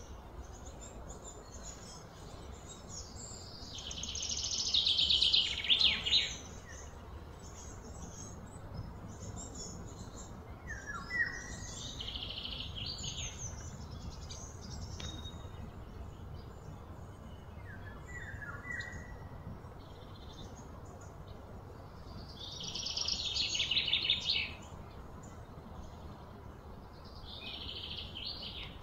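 Wild birds calling: a few short chirps dropping in pitch, and two louder, longer trilling songs, over a steady low background noise.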